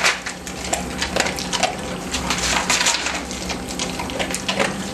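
A dog eating dry kibble from a cardboard tray: rapid, irregular crunching and the clatter of kibble pushed about on the cardboard.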